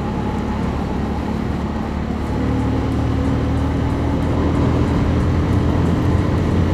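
MUTT Razorback 250's single-cylinder engine pulling steadily in fourth gear under way. Its note climbs slowly and grows a little louder about two seconds in.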